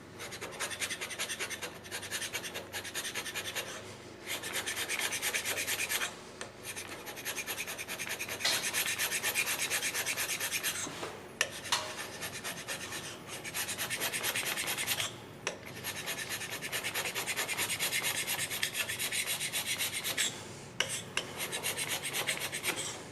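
Scraping of a cast iron machine-tool guideway, a steady rasping of quick strokes in stretches of two to five seconds with brief pauses between them.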